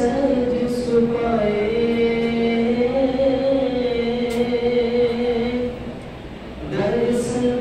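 Voices chanting in long, held notes on a nearly steady pitch, with a short pause about six seconds in.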